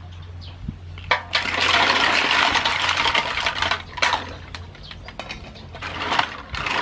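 Green mussels poured from a bamboo basket into a metal basin of water, their shells clattering against the basin and each other with a loud splashing rush for about three seconds. Then shells clack and water sloshes as hands rub and swish them clean in the basin.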